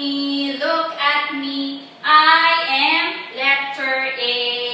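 A woman singing a simple children's song, in held notes that step up and down in pitch.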